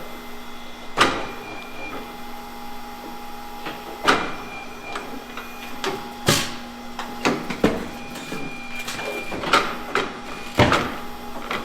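Tire changer machine running with a steady motor hum while a low-profile tire is worked onto the wheel. Sharp clacks and knocks come about five times as the tire and mounting tools strike the machine and rim.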